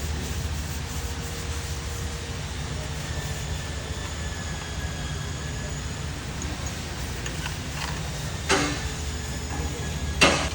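A steady low machinery hum runs throughout. Two sharp metal clanks with a short ring come near the end, about two seconds apart, as tools or parts strike during work on a diesel engine overhaul.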